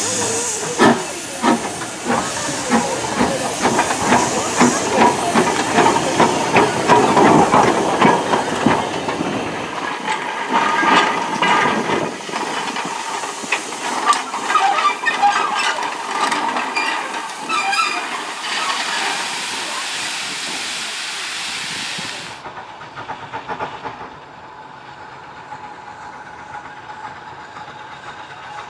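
Hunslet 14-inch saddle tank steam locomotive working: regular exhaust beats over a steady hiss of steam, with clanks and rail clicks. About three quarters of the way through the sound drops abruptly to a fainter, more distant engine.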